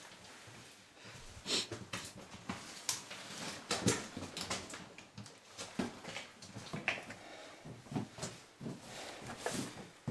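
People crawling through a low, narrow cave passage: irregular scuffs and scrapes of boots, overalls and gear against rock, with breathing.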